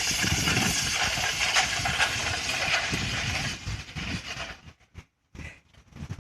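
Weighted sled dragging over pavement: a steady scraping hiss with low rumbling underneath. It fades out about four and a half seconds in, leaving only a few short, faint noises.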